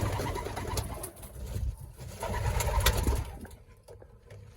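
Racing pigeons cooing, with a few light clicks, going quieter near the end.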